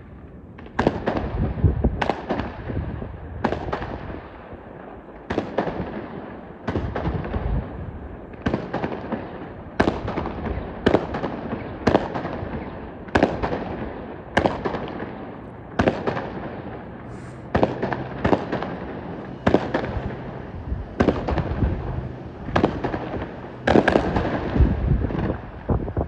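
Aerial fireworks shells bursting one after another, a sharp bang every second or so, each trailing off in a fading rumble and crackle.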